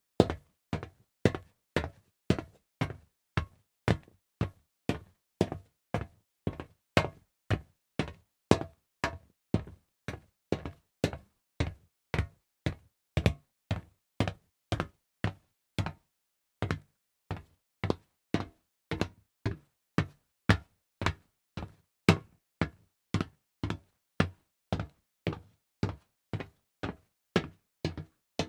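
Footsteps on a hard surface: crisp, even steps at about two per second, with a short break near the middle.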